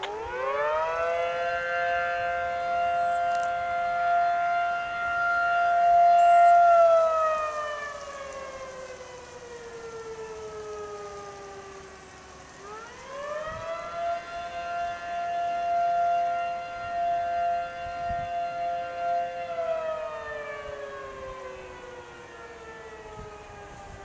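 Gamewell diaphone fire horn sounding its test. It winds up to a steady two-note chord, holds for about six seconds and winds down. It then winds up again, holds for about six seconds and winds down near the end.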